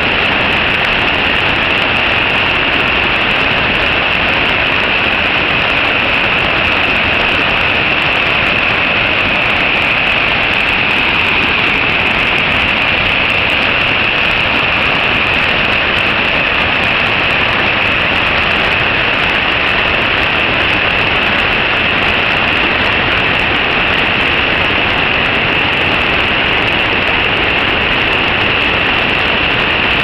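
Loud, steady rushing of a mountain stream pouring over rocks as white water and small cascades.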